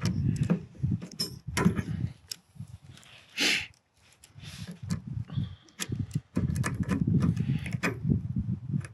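Irregular metallic clicks and scrapes of pliers working a retaining ring out of the bearing cap of a PTO driveshaft universal joint, over a low rumble of handling noise.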